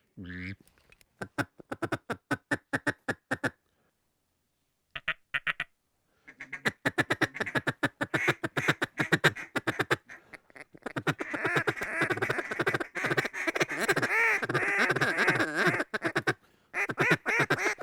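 Duck calls blown in rapid runs of short quacks and clucking feed chatter, with a brief pause about a quarter of the way in. After that, several calls overlap in continuous chatter, calling to ducks circling the decoys.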